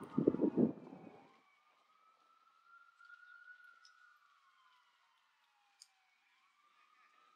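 An emergency vehicle siren wailing, its pitch rising and falling in long slow sweeps. A short low rumble fills the first second.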